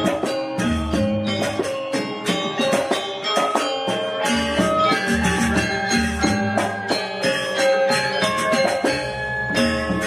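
Live gamelan music for a Janger dance: metallophones ring out a quick run of notes over low drum beats, with jingling percussion on top.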